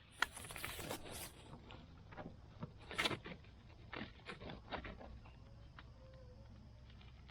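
A run of short rustles and scrapes, quick and close together in the first second or so, a sharper scrape about three seconds in and a few softer ones after, then only faint outdoor background.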